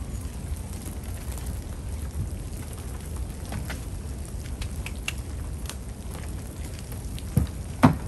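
Steady hiss and patter of heavy wet snow falling, with small knocks and clicks of gear being handled in an open car boot. Two sharp thumps close together near the end.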